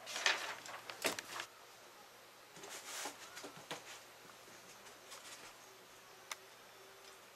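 Handling noises: rustling and scraping in two clusters, then a few sharp clicks, over a faint steady hum.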